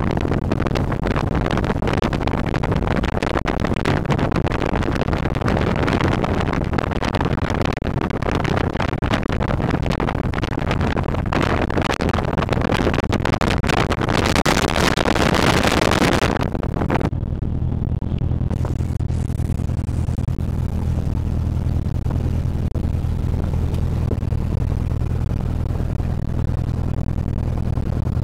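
Single-engine Cessna's piston engine running at low power, heard inside the cabin during the landing rollout. A loud rushing noise lies over it and cuts off abruptly about seventeen seconds in, leaving the steady low engine drone.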